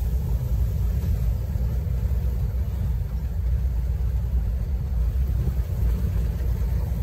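A steady low rumble with no other clear sound over it.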